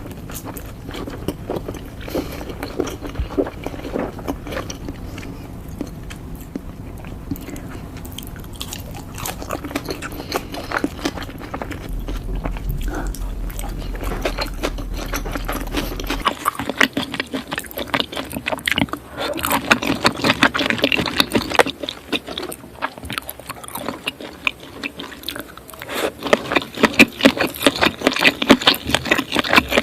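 Close-miked chewing and biting of sushi: irregular mouth clicks and smacks throughout, growing busier and louder in the second half.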